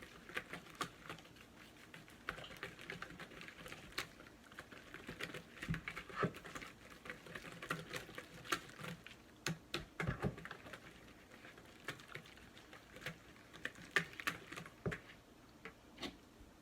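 A spoon stirring a yogurt and spice marinade in a bowl: irregular light clicks and taps of the spoon against the bowl, several a second.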